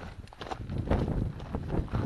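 Hiking footsteps crunching on a loose rocky scree trail, a steady run of steps.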